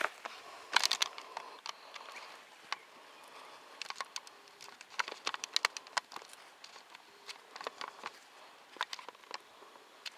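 Irregular crunches, clicks and rustles of someone moving about on dry leaves and twigs, with the densest run of sharp clicks about a second in and again around five to six seconds in.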